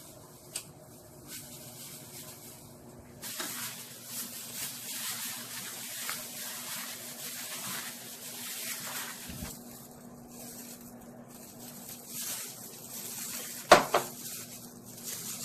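Plastic-gloved hands tossing and squeezing thin naengmyeon noodles with shredded vegetables and gochujang sauce: wet squishing and glove rustling, fuller from about three seconds in. One sharp click near the end.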